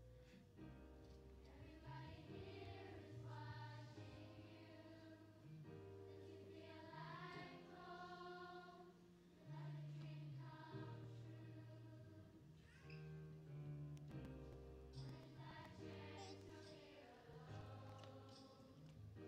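Large children's choir singing in harmony with instrumental accompaniment, held notes over a sustained low bass line, recorded faintly across a big hall.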